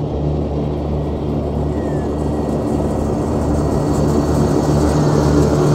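Ride-on mower engine running steadily at a constant pitch, growing louder as the machine approaches.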